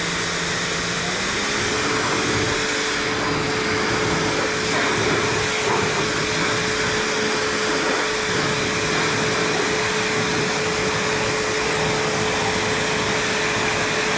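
EGO HPW3304 battery-powered electric pressure washer on turbo: its motor's whine steps up in pitch about a second in as it comes up to turbo speed, then holds steady under the hiss of the water jet from the nozzle, which is the loudest part.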